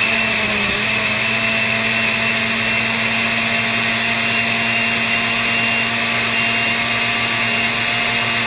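Countertop blender running loudly and steadily at full speed, puréeing whole tomatoes into a liquid salsa: a steady motor whine over a dense rushing noise.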